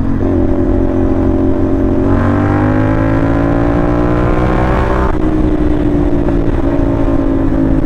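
CFMoto 450NK's parallel-twin engine, with its 270-degree crank, running through a short stainless-steel SC Project replica exhaust while riding. The engine holds a steady note, then rises as the rider accelerates from about two seconds in, and drops back when the throttle closes about five seconds in. Wind rushes over the microphone.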